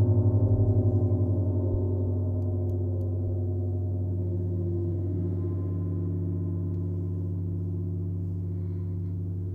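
Venus planet gong played with a soft mallet: a deep, long hum with several steady overtones, throbbing at first and then slowly fading.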